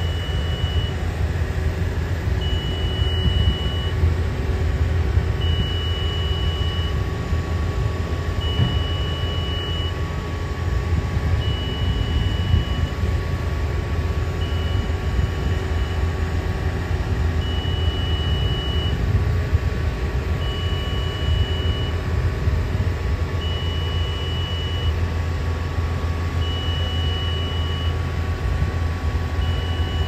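Heavy construction machinery, a crane and boom lifts, running with a steady low engine rumble. A high-pitched machine warning alarm sounds over it, one long beep of about a second and a half repeating roughly every three seconds.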